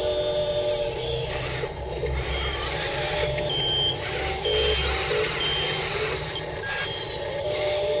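Huina RC wheel loader running on gravel: its drive motor and gears hum while the bucket scrapes and pushes loose gravel. Short high electronic beeps sound several times.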